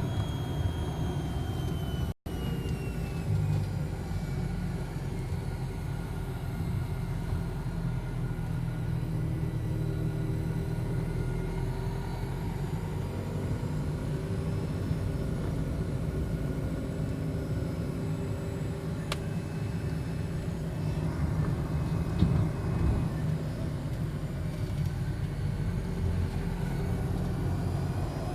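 Engine and road rumble of a moving road vehicle heard from inside the cabin, steady, with the engine note drifting slowly up and down. The sound drops out briefly about two seconds in.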